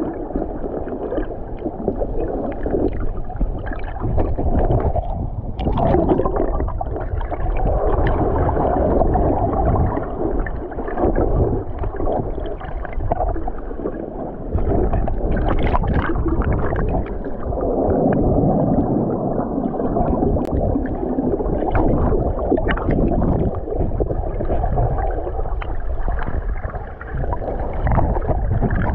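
Muffled rushing and gurgling of water heard from a camera held underwater, swelling and easing as the surge moves, with scattered small clicks and knocks.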